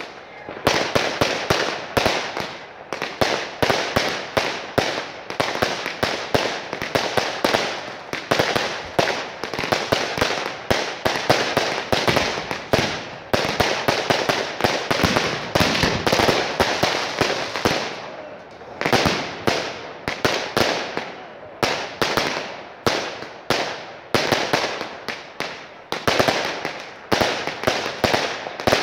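Fireworks going off in rapid, continuous volleys of sharp bangs and crackling, several a second, with a short break about eighteen seconds in.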